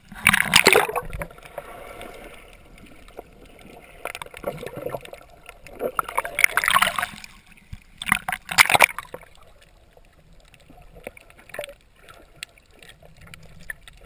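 Sea water splashing and sloshing over a GoPro at the waterline, in three loud bursts, one near the start, one around six seconds in and one around eight seconds in, with a quieter muffled wash between them and as the camera goes under.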